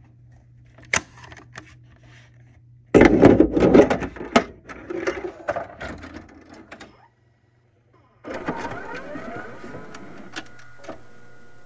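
A faint hum and a click, then about four seconds of loud mechanical clattering and clicking that dies away into a second of dead silence. About eight seconds in, analog videotape noise comes up: a hiss with wavering tones that settles into steady hiss and buzz as the blue VHS screen appears.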